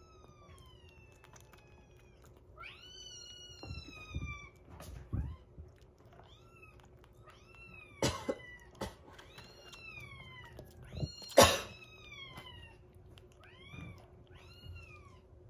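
Young kitten mewing over and over, short high calls that fall in pitch, one of them drawn out. A few sharp clicks or knocks cut in, the loudest about two-thirds of the way through.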